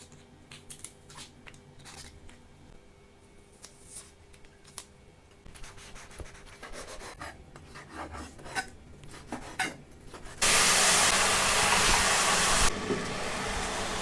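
Light clicks, scrapes and knocks of kitchen handling. About ten seconds in, a loud steady hiss starts suddenly and drops to a softer level about two seconds later.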